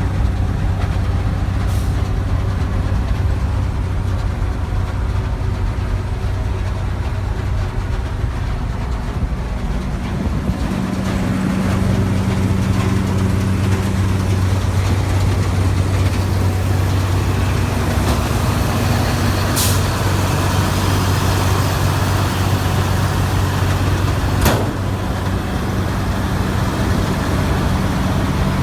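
New Holland TX68 combine harvester's Iveco diesel engine running steadily with a deep hum, its note settling firmer about eleven seconds in. A short sharp hiss about twenty seconds in and a single knock a few seconds later.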